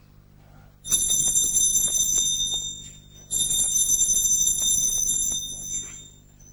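Electric doorbell ringing twice, two long rings of about two seconds each with a fast rattle in them, the second starting a little past three seconds in.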